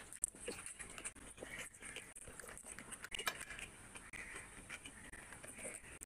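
Close-up chewing and mouth sounds of eating rice and curry by hand, with two sharp clicks, one just after the start and one about three seconds in.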